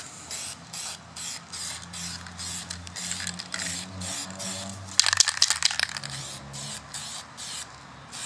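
Aerosol spray-paint can hissing in short, quick bursts, about three a second, as paint is dabbed onto a rifle for the final base coat, with a louder crackling burst about five seconds in.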